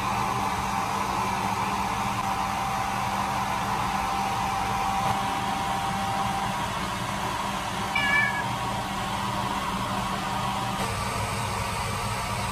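A Persian cat gives one short meow about eight seconds in, over a steady background hiss.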